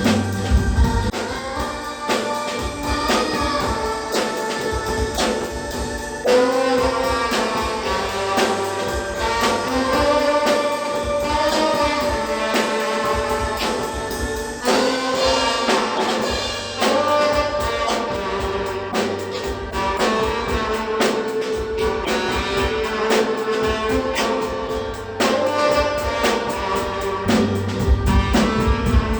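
Tenor saxophone playing a melody in long held notes, with a drum kit keeping time underneath.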